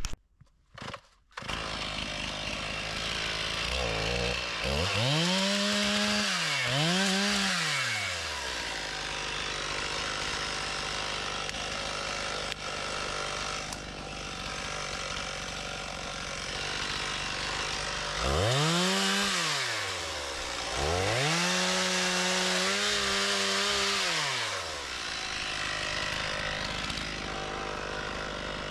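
Stihl MS 391 two-stroke chainsaw running, revved up to full throttle and back down in two pairs of bursts, about five seconds in and again about eighteen seconds in, the second time held at high revs for a few seconds with small dips in pitch as it bucks a downed tree into firewood.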